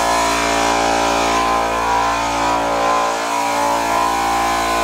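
Small portable electric air compressor running steadily, its motor and piston pump charging the tank with air to blow the water out of the house's plumbing lines.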